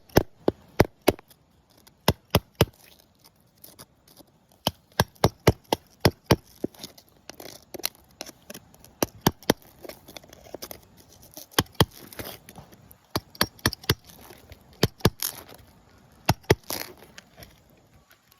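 Many sharp clicks and knocks of hard objects striking, in irregular quick runs with short pauses between them.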